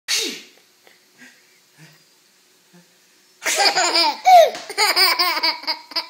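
A single sharp sneeze right at the start, then after a pause of about three seconds a toddler laughs in a quick run of high-pitched laughs.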